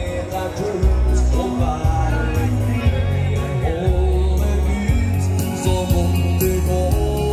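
Norwegian dance band (danseband) playing live: a singer over a steady, heavy bass line in a swaying dance rhythm.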